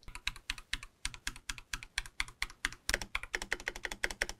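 Typing on a mechanical keyboard fitted with Akko CS Silver linear switches: a rapid run of key clicks, about eight to ten strokes a second, heavier and louder from about three seconds in.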